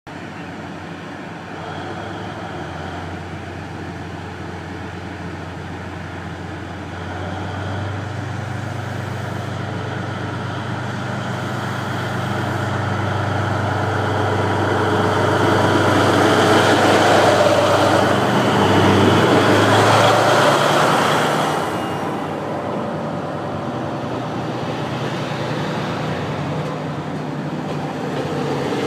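A diesel locomotive hauling the Seven Stars sleeper train pulls away from the station. Its engine is a steady low note that builds to its loudest partway through, then drops off sharply a little past two-thirds of the way.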